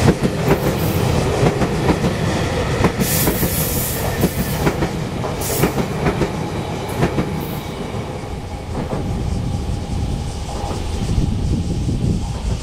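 JR Kyushu 885-series electric express train passing slowly, with its wheels clicking over rail joints above a low rumble. The clicks thin out after about eight seconds as the last cars go by.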